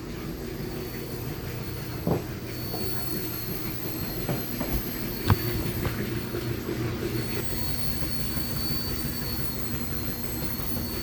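Small electric RC helicopter's motor and rotor whirring steadily, with a high-pitched whine over a low hum. A couple of sharp knocks come through about two and five seconds in.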